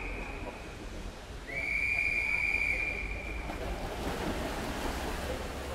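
A long, steady, high-pitched whistle-like tone about a second and a half in. It is followed by a broad rush of splashing as a field of swimmers pushes off the wall at a backstroke start.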